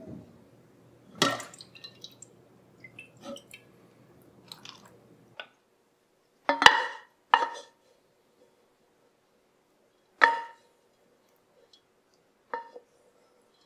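Wooden spoon knocking and scraping inside a metal saucepan while the last mustard seeds and peppercorns are spooned out. There is a knock about a second in, then sharp clanks with a short ring around six to seven seconds in, and two more later.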